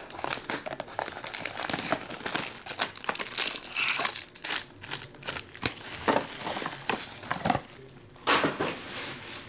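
Crinkling and tearing of plastic wrapping as trading-card boxes and packs are opened, in an irregular run of crackles with a louder burst near the end.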